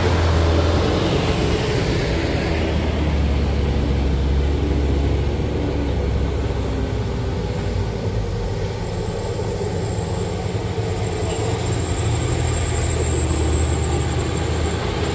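Diesel engines of Mitsubishi light trucks straining up a steep dirt slope in low gear. One truck passes close at the start, and the steady low engine drone carries on as the next truck climbs toward the camera.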